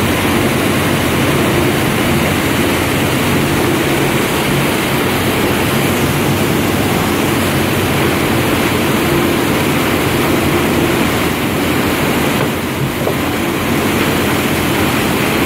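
Rushing, churning water of a boat's breaking wake, a loud steady noise, with the boat's engine humming underneath.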